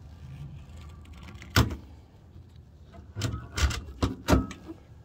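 Ural sidecar's metal trunk lid shut with one sharp thud, then its latch worked with four or five quick clicks and clunks as it is fastened.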